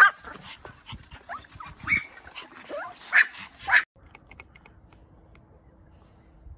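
Small Pomeranian dogs yipping and whining in short, high, pitch-sliding calls, about five of them. The sound cuts off abruptly about four seconds in, leaving a quiet stretch with a faint steady hum.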